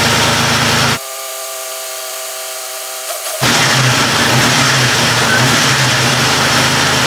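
Turbocharged Jeep Wrangler TJ 4.0 straight-six idling steadily after an injector swap, with the misfire still uncured. Between about one and three and a half seconds in, the low engine note drops away, leaving a thinner hum of a few steady tones, before the full engine sound returns.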